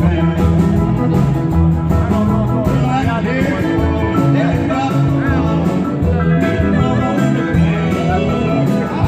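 Live band playing an instrumental break in a country-blues song, with guitar to the fore over a steady bass.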